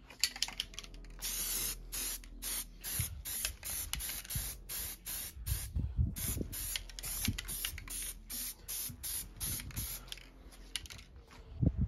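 Aerosol can of Hammerite underbody seal spraying in short, repeated hissing bursts, roughly two a second.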